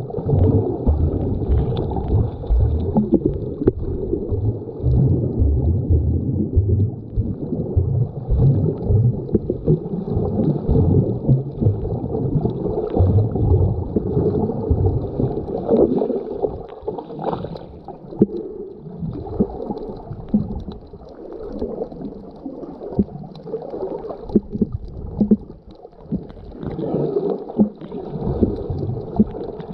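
Underwater sound of a snorkeler's camera held below the surface: a muffled low rumble of moving water with irregular gurgles and small clicks, louder in the first half.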